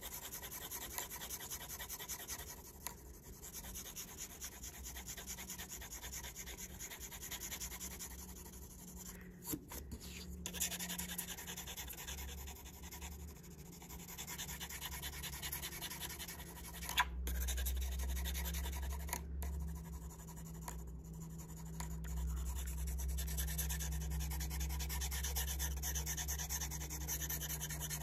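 Graphite pencil shading on paper: the side of the slanted lead rubbing back and forth in quick, continuous strokes, with a steady low hum underneath.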